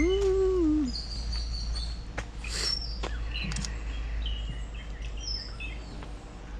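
Birds calling in tropical garden vegetation: scattered short high chirps and whistles, over a steady low rumble. At the very start there is a brief hum that rises then falls in pitch, the loudest sound here.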